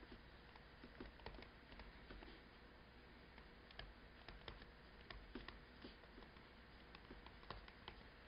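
Faint, irregular taps and clicks of a stylus writing on a tablet screen, a few a second, over near silence.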